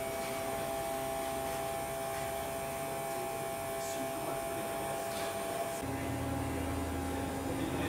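Steady machine hum with a constant whine over it, turning into a deeper, stronger hum about six seconds in.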